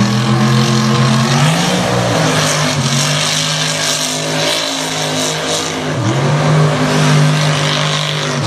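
Mega mud truck's engine running hard at high revs as it ploughs through a mud pit, its pitch shifting up and down a couple of times. Over it is a steady hiss of spinning tires and flung mud.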